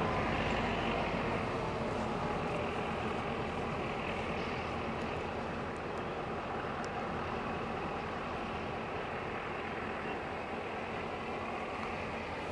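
Class 664 diesel locomotive's engine running steadily as the train pulls away, fading slowly as it recedes into the distance.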